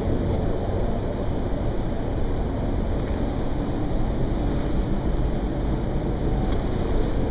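A constant, deep rumbling noise of unknown origin coming from the sky, steady, without any clear pitch. The recorder could feel it as vibration and took it at first for a plane.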